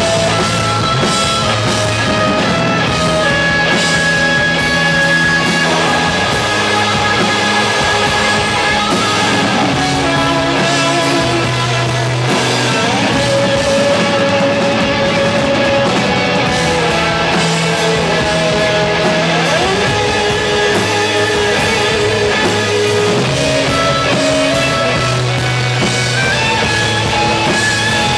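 Rock band playing live: electric guitars over a drum kit, with held chords and a few bent, sliding guitar notes.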